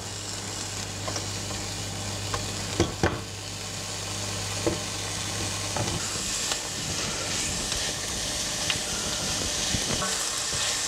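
Chopped onions sizzling in hot olive oil in a frying pan as they soften, stirred with a silicone spatula that knocks twice against the pan about three seconds in. The sizzle grows slowly louder, and a low hum underneath stops about four seconds in.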